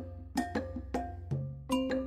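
Background music: a light tune of struck, ringing notes, a few a second, over a steady bass.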